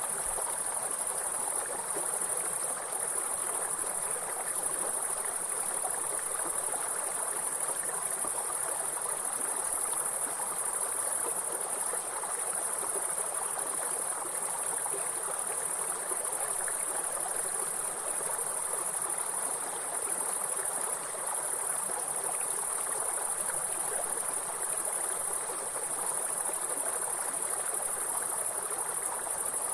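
Insects chirring in a continuous high-pitched drone over the steady rush of a flowing stream.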